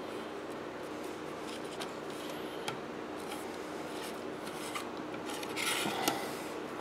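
Fingers rubbing and pressing toner-transfer paper down onto a circuit board, a soft dry scraping with a few small clicks and a louder brushing swish about six seconds in. A faint steady low hum runs underneath.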